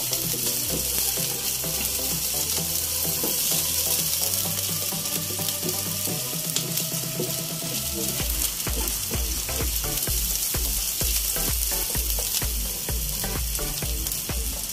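Ginger, garlic and onion sizzling in hot oil in a nonstick frying pan as they are sautéed, stirred now and then with a plastic slotted spatula. Background music plays underneath, with a steady beat coming in about halfway through.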